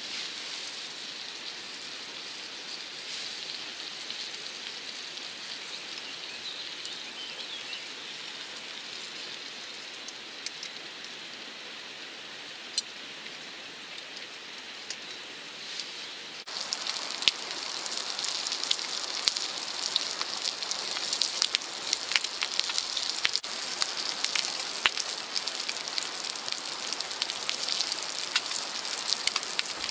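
Bacon and eggs frying in a pan over a campfire: steady sizzling in the fat with scattered crackles and spits. About halfway through, the sizzle becomes suddenly louder and more crackly.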